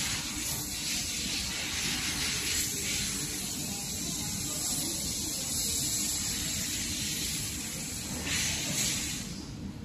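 Steady hiss of gas blowing through a 1500 W handheld fiber laser head while it works on metal, over a low machine hum. The hiss swells briefly near the end and then drops away.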